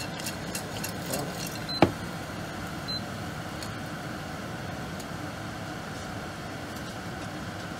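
Popcorn in a glass-lidded pot being shaken on the hob as popping dies out: a steady hiss with a few scattered pops, the loudest about two seconds in.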